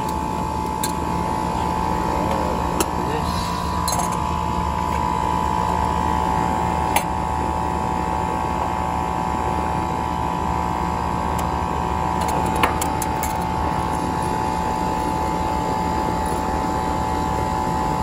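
Outdoor air-conditioner condensing unit running with a steady hum, with a few light metallic clinks from hand tools on the line fittings.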